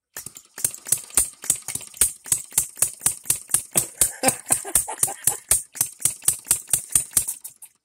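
Engine DIY 'three-stroke' model gasoline engine with 12-volt buzz-coil ignition running, a quick, even string of sharp clicks at about five a second.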